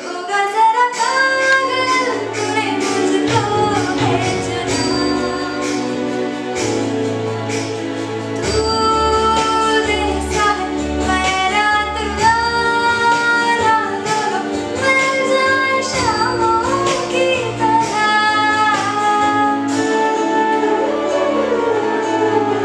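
A woman singing a Hindi song solo, with long gliding, ornamented notes, over backing music with a bass line.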